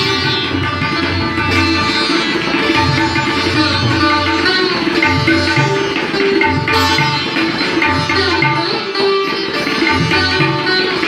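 Sitar playing with many ringing string tones, over repeated low drum strokes from a tabla.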